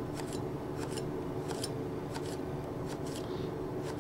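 Global GS1 11 cm knife slicing a sweet pepper into thin slices on a wooden cutting board: short crisp cuts, about two a second, as the very thin, sharp blade goes through the pepper.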